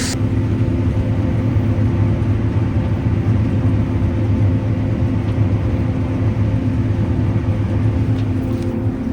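Combine harvester running steadily while harvesting beans: an even drone of engine and threshing machinery with a steady low hum.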